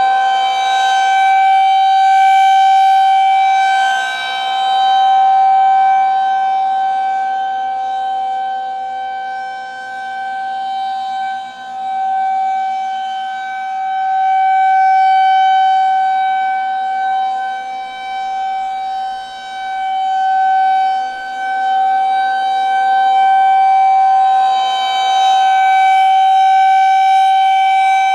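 Federal Signal 2001-130 electromechanical warning siren sounding its full alert signal: one steady, level wail. Its loudness swells and fades every several seconds as the rotating siren head sweeps past and away.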